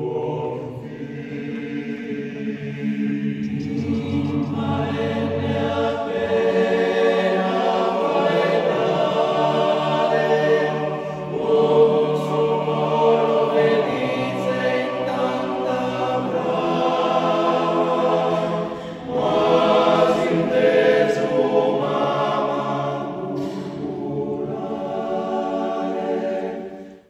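Choir singing: several voices holding long chords that change every few seconds, with a brief drop in level about two-thirds of the way through.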